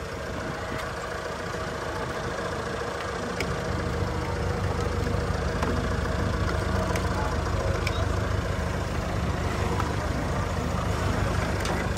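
Jeep Renegade engine idling steadily as the donor car for a jump start, growing louder about three seconds in. A few light clicks can be heard over it.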